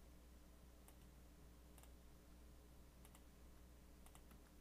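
Near silence with a steady low electrical hum and a handful of faint, irregular computer clicks, made while text is put into a slide.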